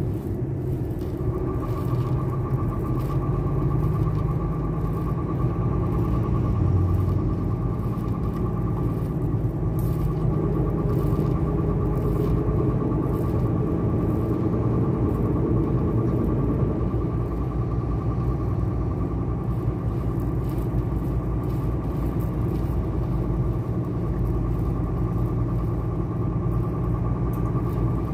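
Truck cab interior while driving: a steady low engine and road rumble, with a thin, steady high whine that sets in about a second in.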